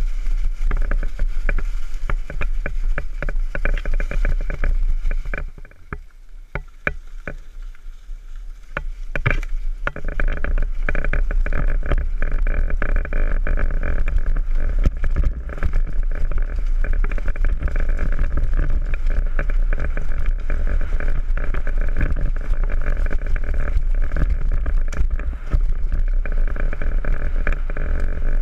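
Downhill mountain bike running down a rough trail: a steady rumble with constant rattling and clacking from the bike. It drops quieter for a few seconds about five seconds in, then picks up again.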